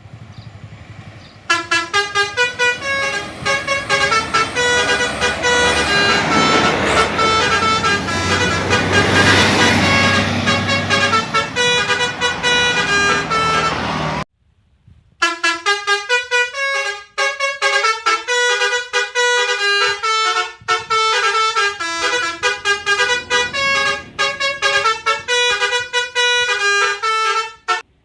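Telolet Basuri musical bus horn, a set of air-horn trumpets playing a quick melody of short and held notes. A low rumble sits under the first half; the horn cuts off abruptly just past halfway and, after about a second of silence, another melody plays on its own.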